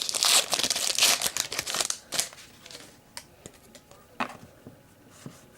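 Trading-card pack wrapper crinkling and tearing as it is handled and opened, a dense crackle for about the first two seconds. After that only a few soft clicks of cards being handled.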